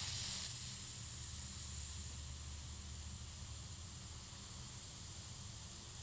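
Butane gas hissing steadily as a can of Zippo butane fuel is pressed onto the fill nozzle of a butane soldering iron, refilling its tank; a little pss.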